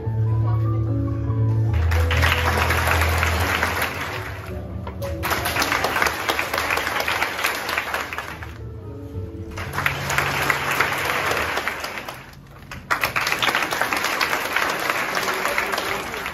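Audience applauding in four separate bursts of a few seconds each, over background music.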